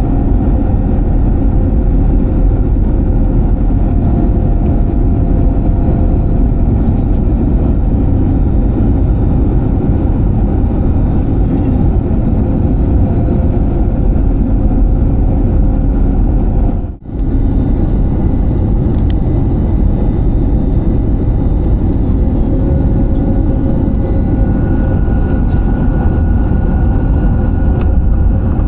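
Steady airliner cabin noise from a window seat: a loud, even rumble of engines and airflow with a few faint steady tones above it. The sound drops out for a split second once, about two thirds of the way through.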